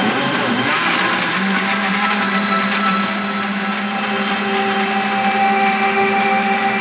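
Countertop blender running, blending pineapple, kale, ginger and water into green juice. Its sound is rough at first and settles into a steady motor hum about a second and a half in.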